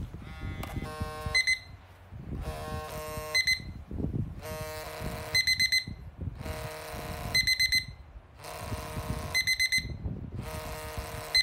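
Vibrating alarm clock for the deaf going off. Each cycle is about a second of buzzing from its vibration motor, then a burst of about four quick high beeps, and the cycle repeats every two seconds.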